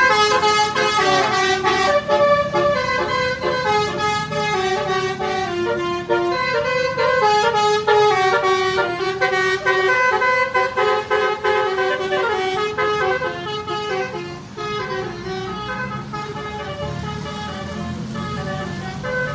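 Basuri multi-tone 'telolet' bus horn playing a continuous melody, its notes stepping up and down every fraction of a second, easing slightly in loudness about two-thirds of the way in.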